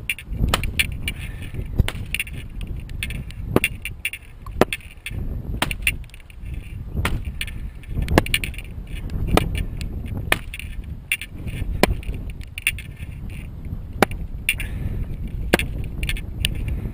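A wooden maul knocks the wooden stakes of a laid hedge, with sharp knocks about once a second over a steady low rumble and rustling twigs.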